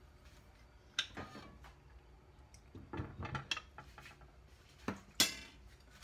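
Cookware clinks and knocks as a glass lid is set onto a non-stick frying pan: a knock about a second in, a cluster of clatters around the middle, and two sharp clicks near the end, the last one the loudest.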